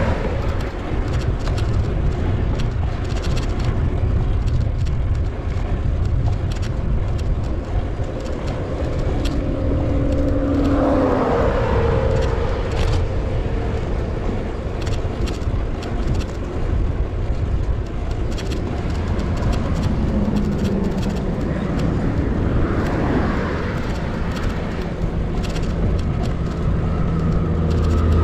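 Wind rushing over an action camera's microphone while riding a bicycle at speed, with road traffic passing: a motor vehicle goes by about ten seconds in and another a little past the middle.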